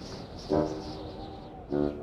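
Cartoon soundtrack music: two short, loud pitched notes about a second apart over a softer steady background.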